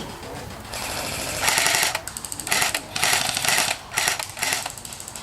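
Airsoft guns firing several short full-auto bursts, a fast mechanical rattle of shots, with the longest bursts about a second and a half in and around three seconds in.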